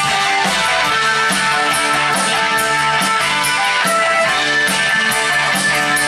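Live rock band playing: electric guitar and bass over a drum kit, with regular cymbal strikes.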